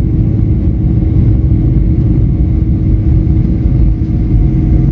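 Airliner's jet engines running at takeoff power, with the rumble of the wheels on the runway, heard from inside the cabin during the takeoff roll. A steady, loud rumble with a faint steady hum above it.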